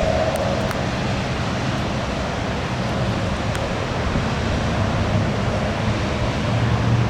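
Heavy thunderstorm rain pouring steadily with gusty wind, a constant even hiss; a low hum swells briefly near the end.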